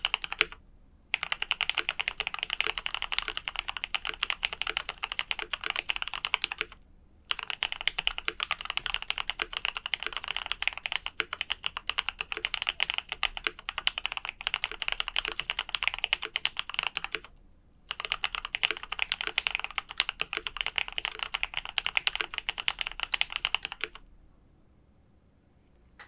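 Fast, continuous typing on a KBD67 Lite R2 mechanical keyboard with lubed Gateron Ink Black V2 linear switches, a polycarbonate plate and GMK keycaps. The typing comes in long runs broken by three short pauses and stops near the end.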